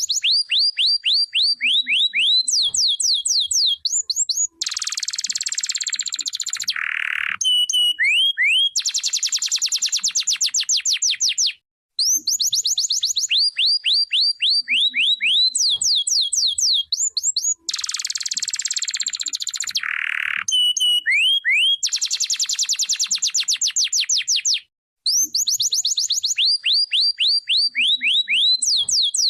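Canary singing in fast trills of rapid rising sweeps, buzzy rolls and short piping notes. The same song sequence repeats about every twelve and a half seconds, with a brief break between repeats.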